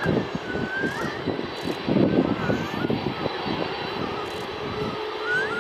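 Jet engines of a Boeing 747-400F freighter running on the ground: a loud, uneven rumble that rises and falls, with a thin high tone wavering above it.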